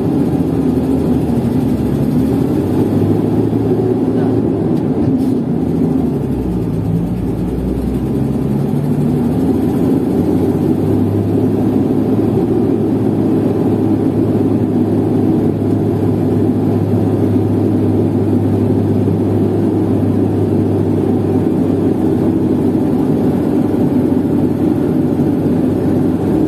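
Diesel engine of a SANY STC800S 80-tonne mobile crane, heard from inside the cab, pulling the crane away under load on a hill start. Its note shifts between about six and ten seconds in, then runs steady.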